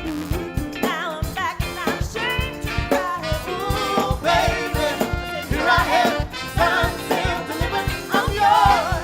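A band playing a song: a singer holding long, wavering notes with vibrato over a steady drum beat.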